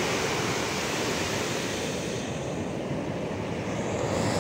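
Ocean surf washing up a beach: a steady rush of breaking waves and foam, turning a little duller about halfway through.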